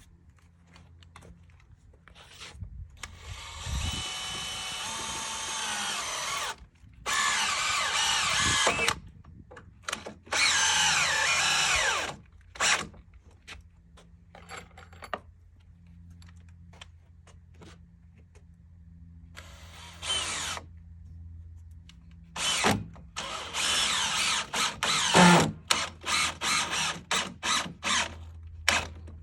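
Power drill driving 6-inch structural screws through two doubled wood studs. It makes three long runs of several seconds each, then, after a pause, another run followed by a quick string of short trigger bursts near the end.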